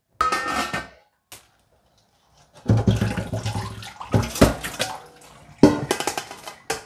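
A short metallic clank near the start, then tap water running into a stainless steel bowl of cut cabbage at the sink, with the bowl knocking and rattling as it is handled.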